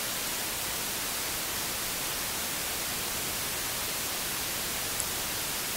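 Steady hiss of a recording's background noise, with one brief faint click about five seconds in.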